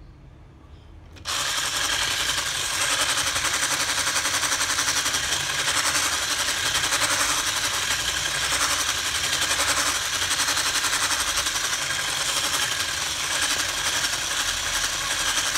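Electric whisk switched on about a second in and running steadily, its wire whisk beating pancake batter in a stainless steel bowl.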